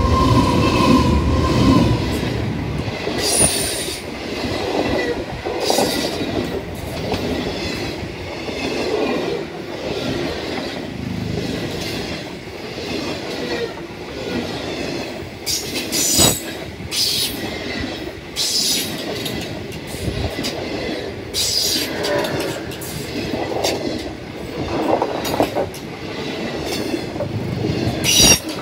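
A passenger train passing close by: the NR class diesel-electric locomotive goes past at the start, heaviest in the first couple of seconds, then a long rake of stainless-steel carriages rolls by with the wheels running over the rails and repeated short, high-pitched wheel squeals.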